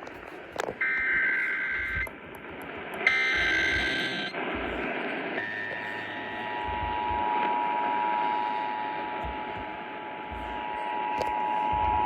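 Emergency Alert System tones received over a radio: two harsh one-second SAME header data bursts, then, about six seconds in, the steady two-tone EAS attention signal begins and holds, over a constant background hiss.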